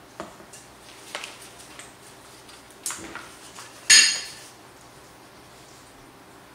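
Kitchen utensils and dishes clattering: a few light knocks and clinks, then a louder clink about four seconds in that rings briefly.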